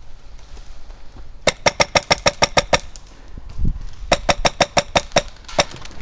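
Airsoft gun firing two rapid bursts of sharp shots, about seven shots each at roughly six or seven a second, with a lone shot shortly after the second burst.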